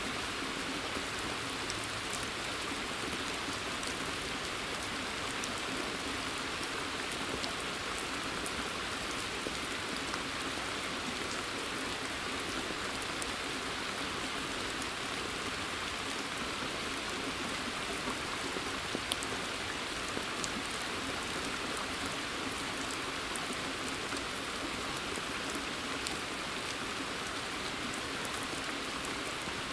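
Steady rain falling in woodland: an even hiss of rainfall, with many small drop ticks scattered through it and one slightly louder drip about two-thirds of the way through.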